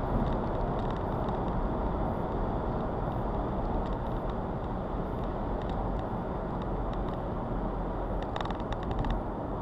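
BMW 1 Series 116d with its N47 2.0 diesel engine on the move: steady engine and road noise heard from inside the car, with faint, irregular ticks about once a second.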